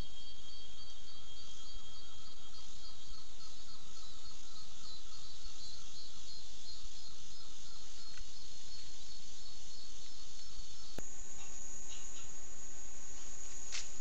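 Steady chorus of forest insects, several high shrill tones, some of them pulsing. About 11 s in it cuts off suddenly and is replaced by a single steadier high whine, with a few sharp clicks near the end.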